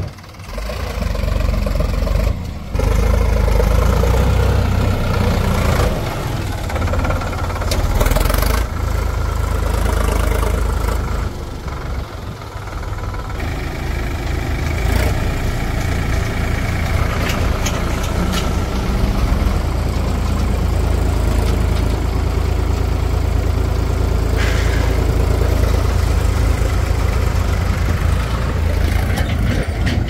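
Heavy diesel engine running steadily, with a few short knocks during it.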